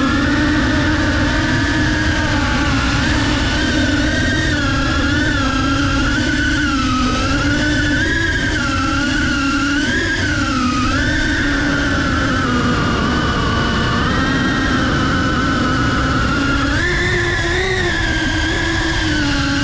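FPV quadcopter's brushless motors and propellers whining, the pitch wavering up and down with the throttle and jumping higher near the end, over a low rushing noise.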